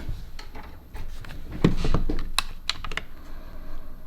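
Irregular light clicks and taps from small tools and phone parts being handled on a repair bench, with a cluster of quick clicks about two and a half seconds in.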